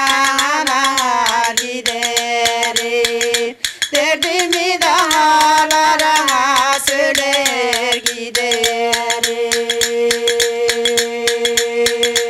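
A woman singing a Turkish folk song (türkü) in a wavering, ornamented voice, with a brief breath break about three and a half seconds in and a long held note from about eight seconds on. Under the voice runs a fast, even tapping beat, struck on a small metal tea saucer.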